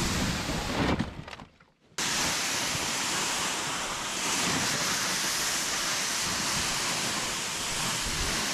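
Plastic ice-fishing sled dragging over snow: a steady scraping hiss, which drops out sharply for about a second near the start and then comes straight back.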